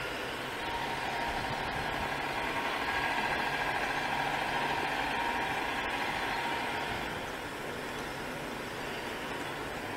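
InterCity 225 train, a Mark 4 Driving Van Trailer leading, running slowly into a station platform: a steady rumble with a faint hum that swells through the middle and eases as it draws in.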